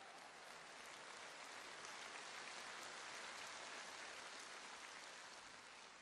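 Faint audience applause: a soft, even patter of clapping that swells a little and then fades near the end.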